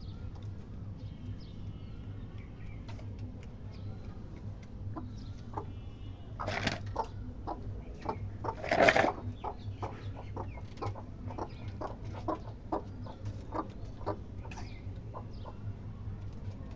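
Chickens clucking in short, quick calls, with a louder burst about nine seconds in, over a steady low hum.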